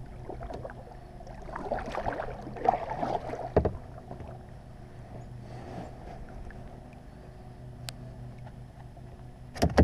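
Kayak paddle strokes, the blade dipping and splashing in the water, with sharp knocks about three and a half seconds in and twice near the end, over a steady low hum.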